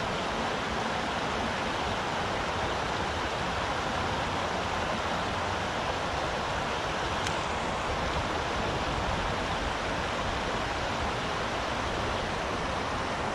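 River water rushing steadily over a shallow rocky riffle.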